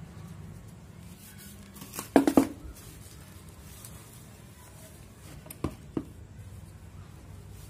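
Gloved hands handling a plastic flowerpot and potting soil: a quick cluster of three sharp knocks about two seconds in, then two clicks a little before six seconds, over a steady low hum.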